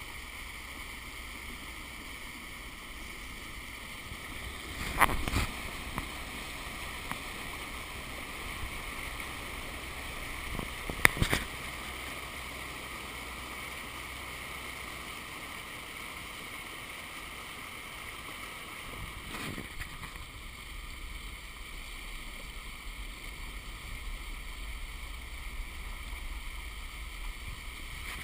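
Pickup truck driving through floodwater covering a road: a steady rush and slosh of water pushed and sprayed up by the tyres. Two sharp knocks stand out, about five and eleven seconds in.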